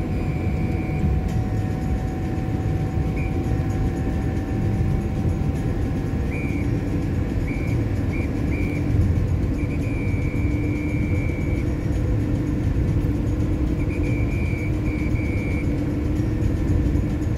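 Steady road and engine noise heard inside a moving car's cabin: a constant low rumble of tyres on asphalt.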